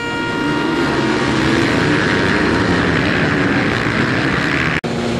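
A pack of motocross bikes accelerating hard together just after the start, many engines at high revs blending into one dense, loud drone. A held high tone fades out in the first second, and the sound cuts out abruptly for an instant near the end.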